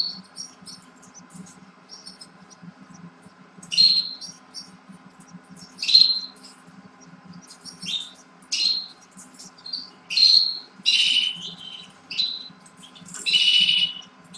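Canary chirps: short high calls every couple of seconds that come closer together in the second half, the last one longer, over a low steady hum.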